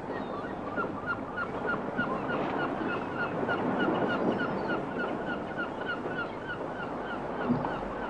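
Sea surf washing in a steady rush, with a bird calling over it in a quick, even run of short repeated notes, about four a second.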